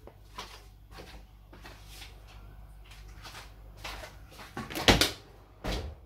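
Faint handling noises with a few light clicks, then a sharp knock about five seconds in and another just before the end, like objects or a door being handled.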